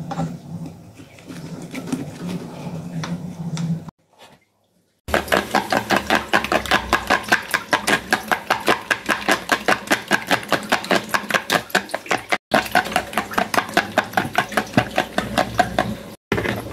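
Metal spoon beating raw egg in a plastic bowl: a fast, even clatter of about five strokes a second, starting about five seconds in after a brief silence.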